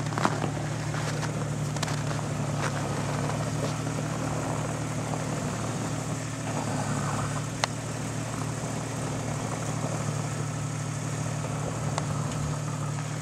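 Jeep Cherokee XJ engine running steadily at low revs as the lifted truck crawls slowly through deep snow, with a couple of sharp clicks.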